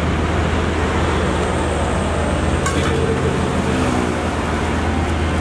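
Steady low rumble of background noise, with a single sharp clink about two and a half seconds in.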